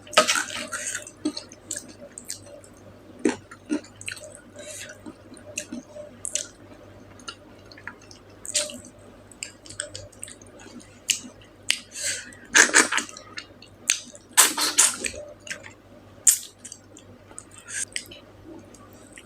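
Close-miked wet chewing and mouth clicks of someone eating, coming irregularly, with two louder, longer wet sounds about two-thirds of the way through.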